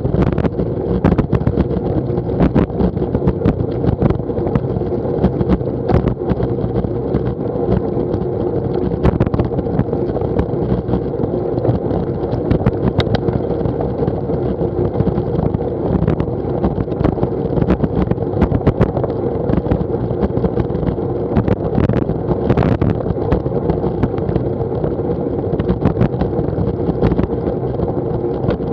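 Steady rush of wind on the microphone of a bicycle-mounted action camera, with tyre noise on a wet tarmac path and frequent small knocks and rattles from bumps.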